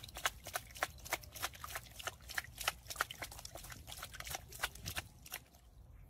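A cat's paw slapping and splashing the water in a tub, quick irregular splashes several times a second that stop about five and a half seconds in.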